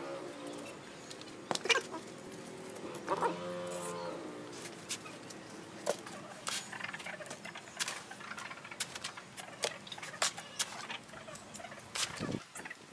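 Wooden planks knocked into place, then a steel shovel scooping sand and tipping it onto a plank platform: a run of short scrapes and soft thuds through the second half. A drawn-out animal call sounds about three seconds in.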